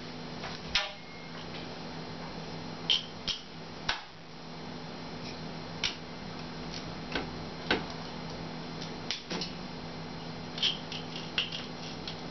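Scattered clicks and knocks of kitchen utensils and containers being handled during food preparation, about a dozen spread irregularly, some with a brief glassy ring, over a steady low hum.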